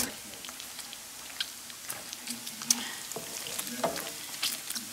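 Chopped bacon frying in a pan of bubbling fat, a steady sizzle with scattered sharp pops and crackles, while a wooden utensil stirs the pieces.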